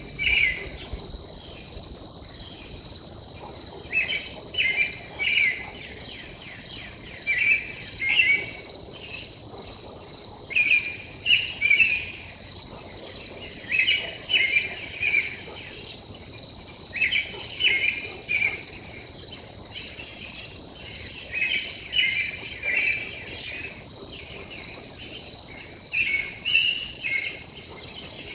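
An unidentified songbird singing short phrases repeated every second or two over a steady, high-pitched insect chorus. The insect chorus is the louder sound.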